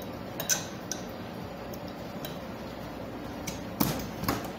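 A few sharp clicks and knocks of kitchenware being handled at a counter, over a steady background noise, with the two loudest knocks near the end.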